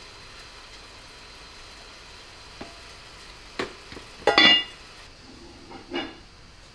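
A few light knocks, then a heavy enamelled cast-iron pot lid clanks onto the pot with a short bright metallic ring about four seconds in, and one more knock near the end, over a steady low hiss.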